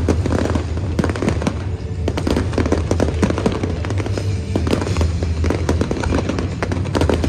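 Aerial fireworks bursting: many sharp bangs and crackles in quick succession, over music.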